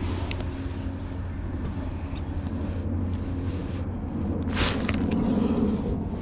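Baitcasting reel being turned to retrieve line over a steady low hum, with a short sharp whoosh about four and a half seconds in.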